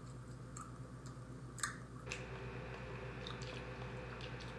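Faint chewing and small mouth clicks of people eating antelope-and-beef jerky sticks, with one sharper click a little past one and a half seconds in. A steady hum sits underneath and takes on a higher tone about two seconds in.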